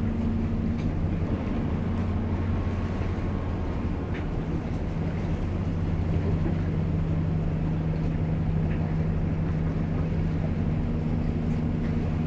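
Low, steady drone of a boat's engine running, with wind and lapping water beneath it.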